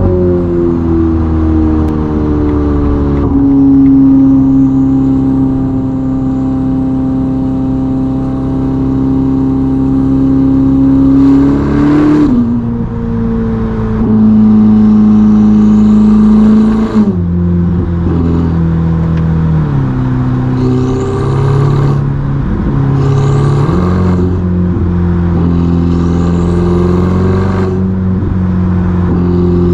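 Ferrari SF90's twin-turbo V8 with a Novitec sport exhaust, heard from inside the cabin while cruising at speed. The engine note holds steady and steps to a new pitch several times as the gearbox shifts. Short rising high whines come in a few times in the second half.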